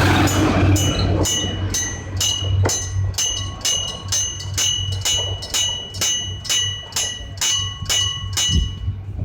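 Electric bell (電鈴式) warning device of a Japanese railway level crossing, striking its gong about twice a second. It falls silent near the end.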